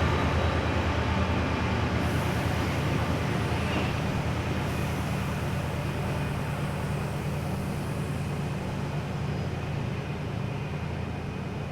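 Class 68 diesel locomotive's engine running with a steady low drone, gradually fading away.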